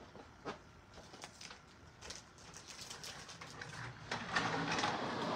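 Faint scattered clicks and rustling. From about four seconds in, louder, noisy breathing of a man out of breath after running.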